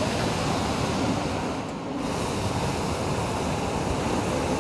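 Hot air balloon's propane burner firing in a long, steady rushing blast, with a brief break about two seconds in.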